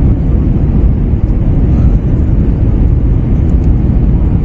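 Airbus A321 cabin noise on final approach: a loud, steady low rumble of the engines and the airflow around the fuselage.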